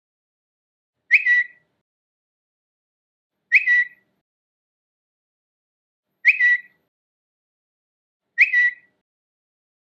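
Twitter notification sound, a short high chirp with a quick upward flick, played four times at irregular gaps of two to three seconds with silence between.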